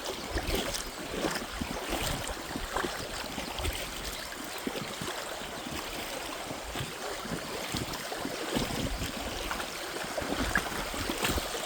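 Shallow creek water splashing and trickling, with many small irregular splashes.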